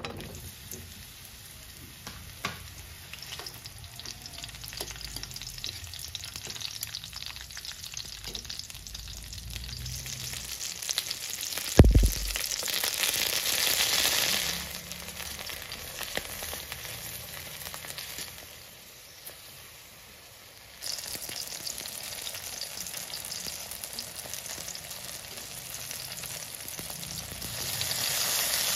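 Eggplant pieces sizzling as they pan-fry in hot oil in an aluminium wok. The sizzle swells after one loud knock about twelve seconds in and again near the end, with a few sharp clicks along the way.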